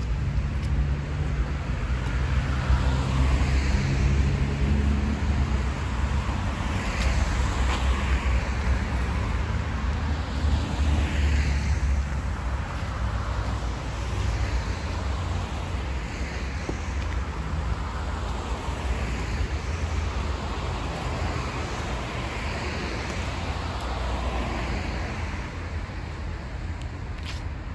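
Road traffic: motor vehicles passing, with a low engine rumble that is heaviest in the first twelve seconds or so and a hiss that swells and fades every few seconds as cars go by.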